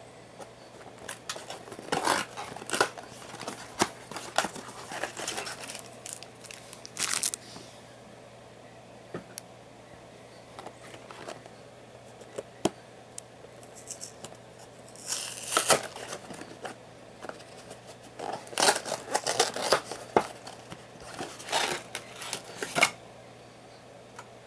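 Plastic wrapping and cardboard of trading-card booster boxes being handled and torn open: crinkling, tearing and sharp clicks in irregular bursts, with a quieter lull in the middle.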